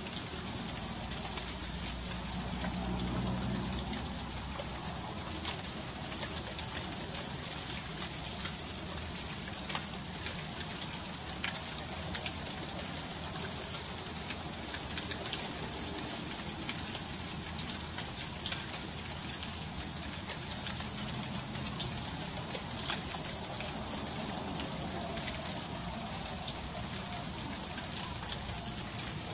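Freezing rain falling steadily: a dense hiss with many small ticks of drops and ice striking icy surfaces. A faint low rumble rises and fades about two to four seconds in.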